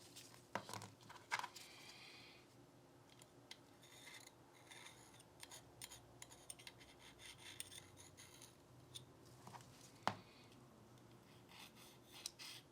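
Metal parts of a Glock 19 pistol being handled during cleaning and trigger work: quiet scattered clicks and scraping, with sharp clicks about half a second and a second and a half in, the second followed by a brief metallic ring, and another sharp click about ten seconds in.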